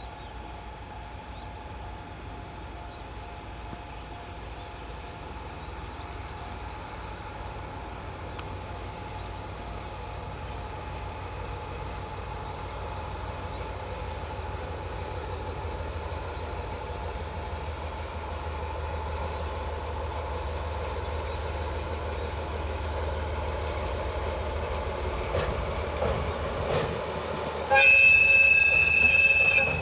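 DE10 diesel-hydraulic locomotive approaching, its engine rumble slowly growing louder, then one loud whistle blast about two seconds long near the end.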